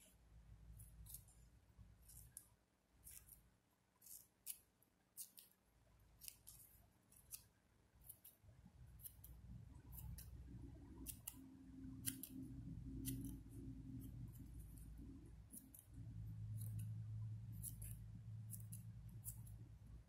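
Small scissors snipping green satin ribbon, a couple of dozen quick, crisp snips at an irregular pace, as notches are cut into the edges of ribbon leaves. A faint low hum lies underneath, louder in the second half.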